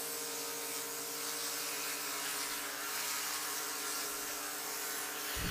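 DJI Mavic 3 quadcopter hovering, its propellers making a steady buzzing whine.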